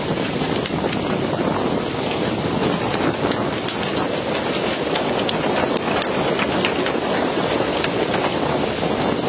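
Steady hiss and splash of churning sea water and spray along a fishing boat's hull, with wind on the microphone and a few light clicks and knocks through it.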